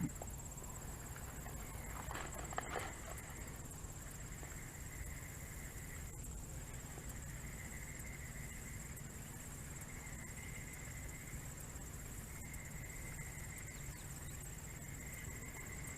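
Faint outdoor ambience: insects droning steadily, with a few soft handling or rustling clicks in the first few seconds.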